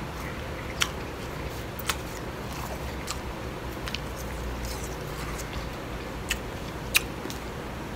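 Crunchy blended ice being chewed while a metal spoon scoops more of it from a bowl, with a few sharp clicks of the spoon against the bowl, the loudest about a second in and near the end.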